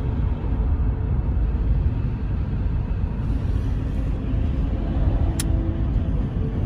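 Road and engine noise heard from inside a moving car's cabin: a steady low rumble, with a single brief click about five seconds in.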